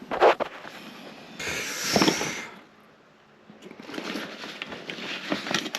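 Handling noises: a sharp knock, then a rustling hiss lasting about a second, then a stretch of irregular crackling and rustling.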